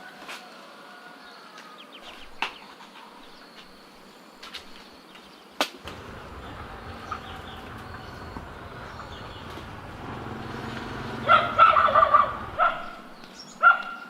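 Birds calling, with scattered sharp clicks. A low rumble runs through the middle, and near the end comes a loud pitched animal call with a shorter one after it.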